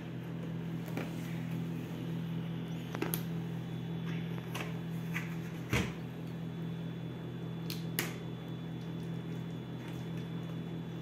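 Plastic serving plate and red plastic jelly mould knocking and clicking as they are handled, turned over and set down to unmould a gelatin. The loudest is a single thump about halfway through, with a few lighter taps on the mould after it. A steady low hum runs underneath throughout.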